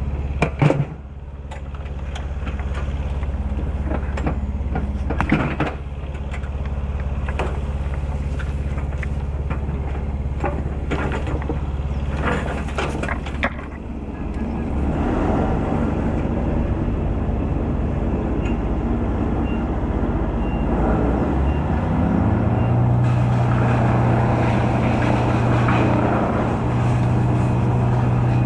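Engine of a cherry picker (MEWP) running steadily, then speeding up to a higher, steady pitch about three-quarters of the way through. A few sharp knocks and crackles come in the first half.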